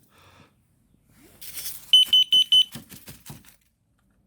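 Combination smoke and carbon monoxide detector alarm sounding four quick, loud, high-pitched beeps, the four-beep pattern of a carbon monoxide alarm. A short hiss comes just before the beeps, and a run of light knocks follows them.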